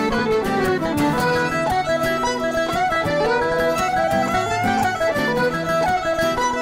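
Background music: an instrumental tune with a steady beat.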